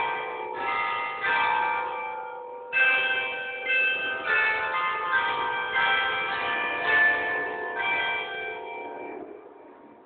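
Church bells of the Basilica of St Peter and St Paul at Vyšehrad ringing in a dense peal, strike after strike overlapping, with a brief break about two and a half seconds in. The ringing dies away near the end.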